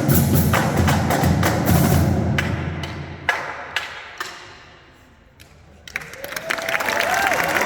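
High school drumline ending a piece: loud drumming that dies away over a few seconds, with a few sharp separate clicks. About six seconds in, the audience begins cheering and applauding.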